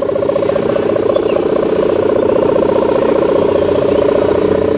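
Sendaren kite hummer, a taut plastic (mika) film strung on a bow on a flying kite, buzzing in the wind with the 'gerr' drone: a loud, steady buzz that pulses fast and evenly.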